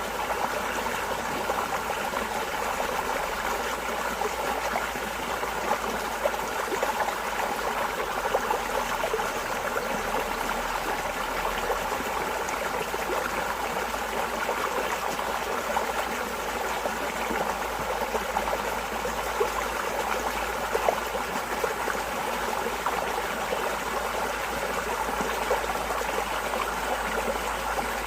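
Flowing water: a steady, continuous babble of running water with small irregular splashes throughout.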